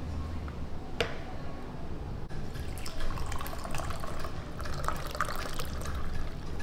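A drink being poured, splashing as it fills for about three seconds, starting about two seconds in. A single sharp clink comes about a second in.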